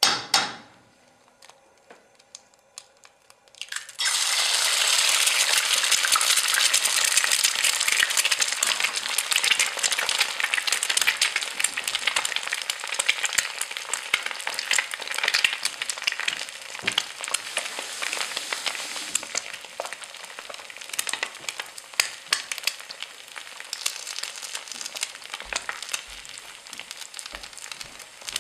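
A giant jianbing pancake frying in hot oil on a large iron griddle: a dense, crackling sizzle that starts suddenly about four seconds in and eases off toward the end. Before that there are only a few faint clicks.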